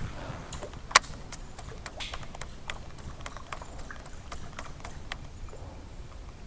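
Light, irregular clicking, roughly four clicks a second, with one sharper, louder click about a second in.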